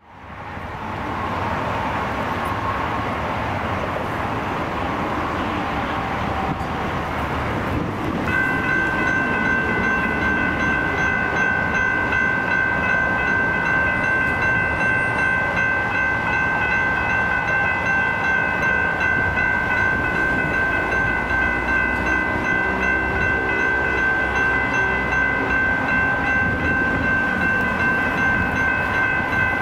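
Railroad grade crossing warning bell starts ringing about eight seconds in and keeps ringing steadily as the crossing signals activate, warning of an approaching train, over a steady hiss of road traffic.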